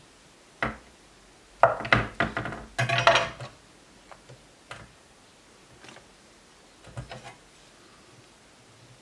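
Kitchen knife slicing a block of cheese on a wooden cutting board: the blade knocks and scrapes on the board in a busy run early on, followed by a few light ticks and a short group of knocks a little before the end.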